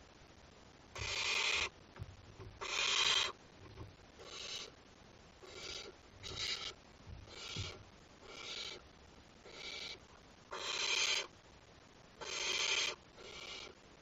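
Young barn owls making their rasping, hissing 'snore' begging calls, about eleven in a row, roughly one a second. Each hiss lasts about half a second, and some are much louder than others.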